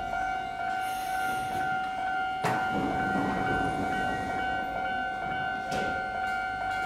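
Steady high-pitched electrical whine from a Toei Asakusa Line 5300 series train standing at the platform, over a low rumble, with two sharp knocks, one about two and a half seconds in and one near the end.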